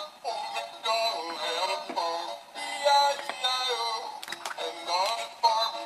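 Background music with high, synthetic-sounding singing, a children's-song style melody, with a few light clicks about four seconds in.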